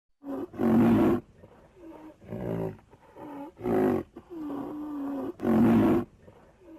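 A farm animal calling about five times in a row. The calls are loud and pitched, each lasting up to a second, and one of them is held longer at a steady pitch.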